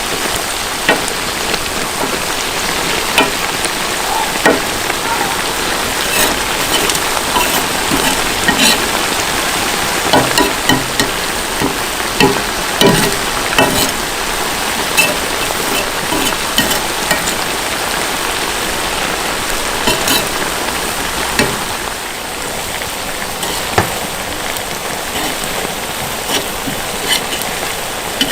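Food sizzling and frying in a pot over a campfire, a steady hiss with many scattered sharp clicks and knocks throughout.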